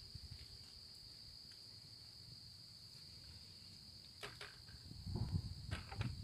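Steady, high-pitched insect trilling in the woods, with thudding footsteps on a wooden footbridge's planks, loudest about five to six seconds in.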